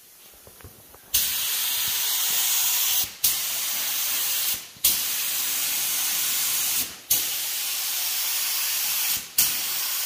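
Air-powered gravity-feed paint spray gun hissing as it sprays paint. It starts about a second in and runs in passes of about two seconds each, with brief breaks between the passes.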